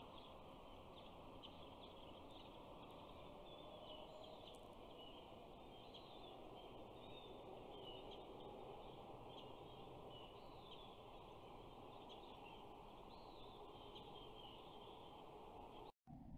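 Faint, steady outdoor background hiss with many small birds chirping and twittering throughout. The sound drops out briefly near the end.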